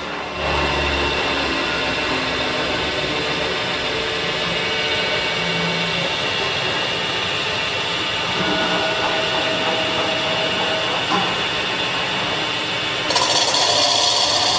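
CNC metal spinning machine running, a steady machine sound with several held tones as the spindle turns the workpiece. About thirteen seconds in a harsher, higher hiss joins.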